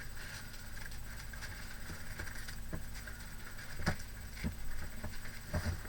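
Rustling and handling of a stack of craft papers being looked through, with a few light knocks, the clearest near the end.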